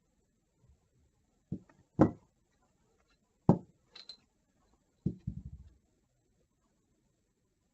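Parts of a scooter variator being taken apart and set down: a few separate knocks and clinks, the loudest about two and three and a half seconds in, then a short rattle of small knocks around five seconds in, as the rollers are handled.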